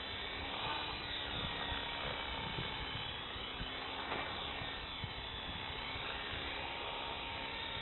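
Small battery-powered RC helicopter hovering close to the ground, its electric motor and rotors giving a steady whine. The pitch dips and rises again around the middle as it shifts position.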